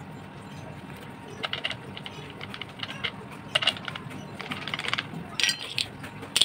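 Small steel parts clicking and clinking as a chain sprocket is fitted onto an angle grinder's spindle: scattered light rattles with a few sharper ringing clinks, the first about a second and a half in and the last near the end.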